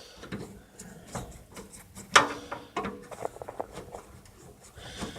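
Small metallic clicks, taps and rattles from thumbscrews being unscrewed on a desktop PC's metal case, with one sharp click about two seconds in.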